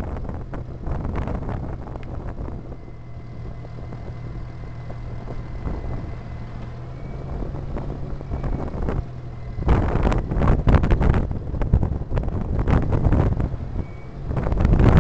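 Car driving on a road, heard from inside the car: a steady low engine hum and road noise, with loud gusts of wind buffeting the microphone from about two-thirds of the way through.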